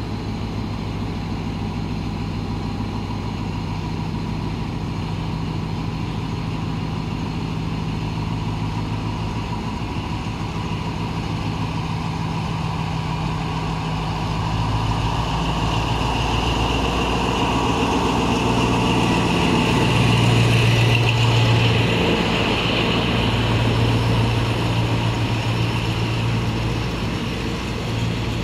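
Diesel train engine running steadily, growing louder through the second half and loudest about two-thirds of the way through before easing a little.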